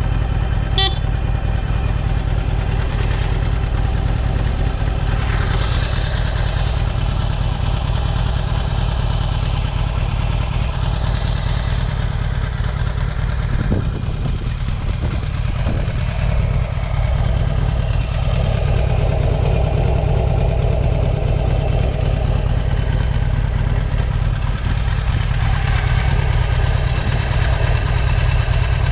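Stock 2019 Harley-Davidson Sportster SuperLow 883's air-cooled 883cc Evolution V-twin idling steadily through its twin staggered shorty exhausts with dual mufflers.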